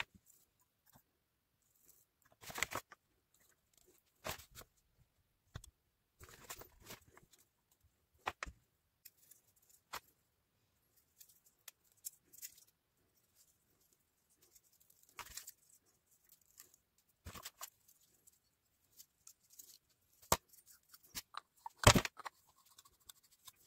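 Hands handling PVC and brass plumbing fittings on a paper-covered table: scattered light clicks, knocks and rustles as pieces are set down, thread tape is wrapped and a brass fitting is threaded into a PVC adapter, with the loudest knock near the end.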